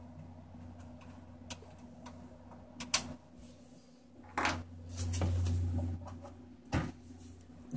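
Running desktop PC fans making a steady low hum, while the Cooler Master case's side panel is worked open: a few sharp clicks and knocks of screws and sheet metal, the loudest about three seconds in. The hum grows louder for about a second around five seconds in.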